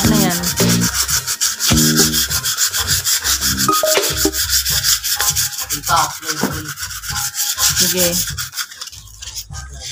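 Quick back-and-forth rubbing strokes of a hand-held pad on the painted cast-iron arm of an old Singer sewing machine, about five or six strokes a second. The strokes grow quieter near the end.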